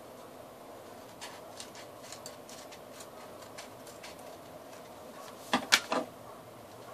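Light ticks and rustles of paper sheets being handled and fitted together, then three sharp, louder clicks in quick succession near the end.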